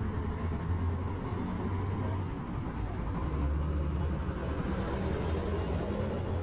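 Road traffic at an intersection: a steady low rumble of idling and passing engines, with a heavy dump truck crossing near the end.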